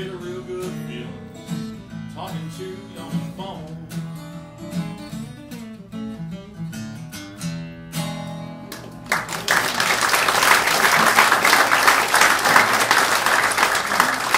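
Solo blues guitar playing, which stops about nine seconds in, followed by the audience applauding loudly.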